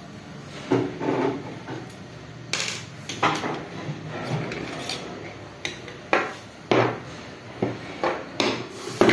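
Irregular metal clinks, knocks and short scrapes of a screwdriver and a metal hard-drive caddy being handled against the sheet-metal chassis of an opened all-in-one computer, a dozen or so sharp knocks in no set rhythm.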